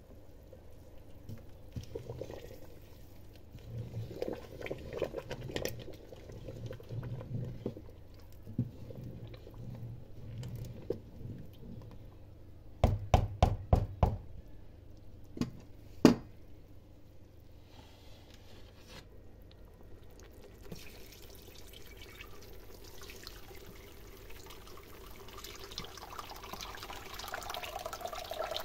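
Hot rendered pork fat being poured from the pot through a mesh strainer into a glass bowl, a steady splashing pour that builds toward the end. Before it, the fat bubbles with low, uneven pops as it renders into lard, and a quick run of sharp knocks comes about halfway through, with one more shortly after.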